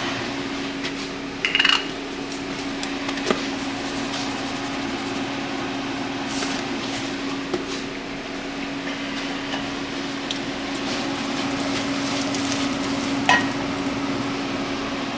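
Omelet cooking in a frying pan: a steady low sizzle over a constant hum, with a few short knocks and clinks of a utensil on the pan, about a second and a half in and again near the end.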